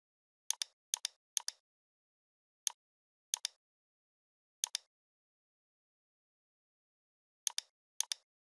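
Computer mouse clicks in otherwise dead silence: about eight single clicks, each a quick press-and-release, spaced unevenly, with a pause of nearly three seconds midway.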